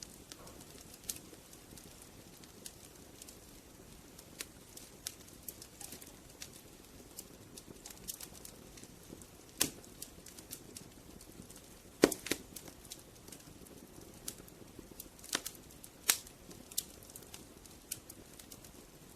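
Wood fire burning with a soft steady hiss and irregular crackles and pops. The loudest snaps come about halfway through and again a few seconds later.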